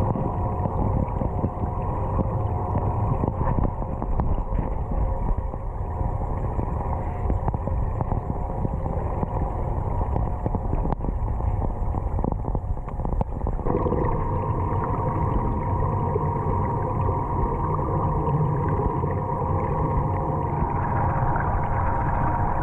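Underwater ambience picked up by a camera submerged in a swimming pool: a steady low rumble with a few steady hum tones above it, which change pitch about 14 seconds in.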